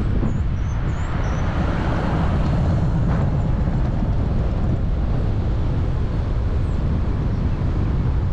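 Car driving: steady road and wind noise, a low rumble without break.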